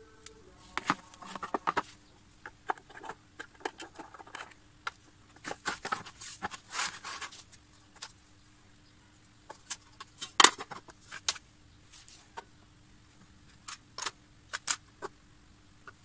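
Scattered plastic clicks, taps and short scrapes as the case of an electronic kitchen scale is handled and pressed back together, with one sharper click about ten and a half seconds in.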